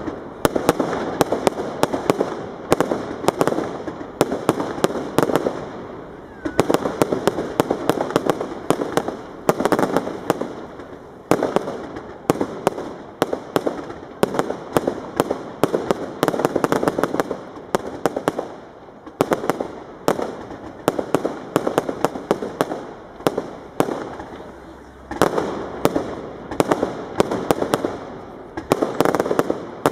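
Fireworks display: rapid crackling bangs and pops in dense volleys, swelling and easing every two to three seconds without a real break.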